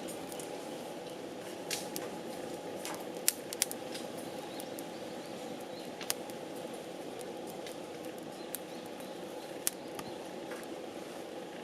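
Firewood burning in a Picogrill-style fire stand, giving irregular sharp crackles and pops, about five standing out, over a steady rushing noise.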